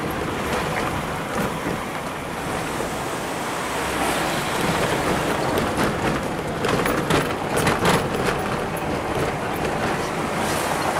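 Road noise inside a moving car's cabin: a steady rush of tyres, engine and wind, with a few brief knocks about seven seconds in.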